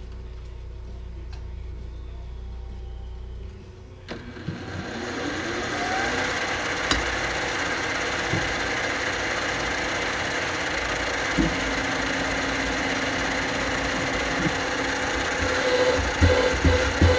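Benchtop milling machine's spindle motor starting about four seconds in, rising in pitch as it spins up, then running steadily. Near the end a drill is fed into the clamped part by hand, adding a rhythmic pulsing of about three beats a second.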